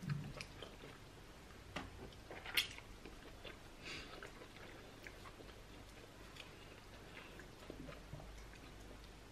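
Quiet eating by hand: fingers working pounded yam dough through okra soup in a ceramic bowl, with soft chewing and a few scattered clicks, the sharpest about two and a half seconds in.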